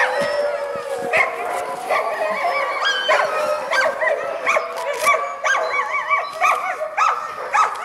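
Alaskan malamutes vocalizing: many overlapping high, wavering whines and yelps in quick succession, rising and falling in pitch. The dogs are eager to set off.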